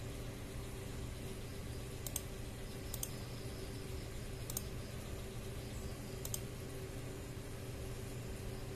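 A few sharp, separate computer mouse clicks, a second or two apart, over a steady low hum.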